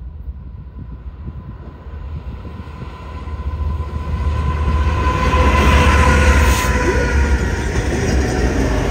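Diesel freight locomotives approaching and passing close by, their deep engine rumble growing steadily louder until the lead units go past, with the wheels running on the rails.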